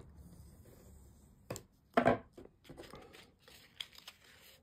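Cardstock being creased with a Teflon folding tool and handled: light paper rustling with a few short taps and knocks, the loudest about two seconds in.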